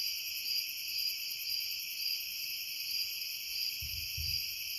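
Steady chorus of night insects, pulsing about twice a second. About four seconds in come two dull low thumps in quick succession: the distant banging that almost sounds like drumming.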